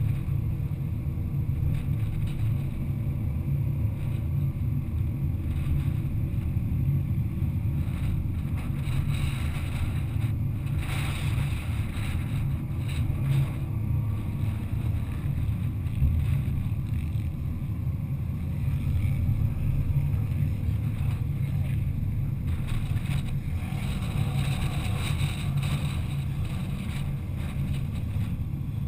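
A car driving along a paved road: a steady low rumble of road, engine and wind noise, with stretches of louder hiss near the middle and again near the end.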